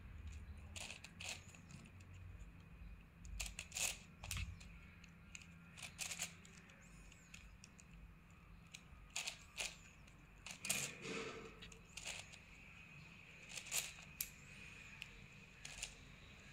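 Layers of a plastic 9×9 puzzle cube being turned by hand: irregular short clacks and scrapes, single or in quick pairs, every second or two with short pauses between.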